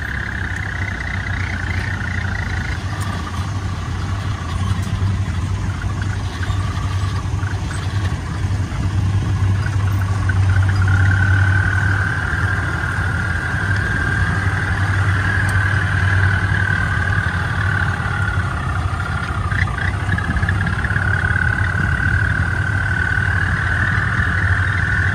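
Engine of a tracked rice-sack carrier running steadily as the loaded carrier crawls forward: a steady low drone with a high whine that grows stronger about halfway through.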